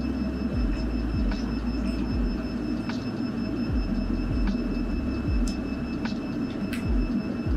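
Water chiller of a mold laser welding machine running: a steady low rumble with a thin, continuous high tone above it and a few light clicks scattered through.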